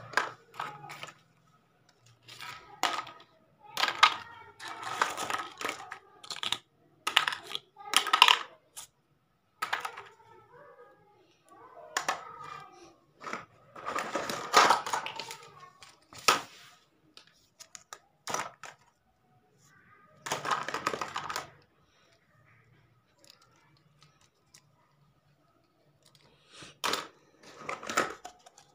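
Small plastic toy kitchen pieces clattering and clicking against each other as hands rummage through a heap of them: irregular knocks and rattling, with longer sliding, rustling stretches of a second or two and short pauses in between.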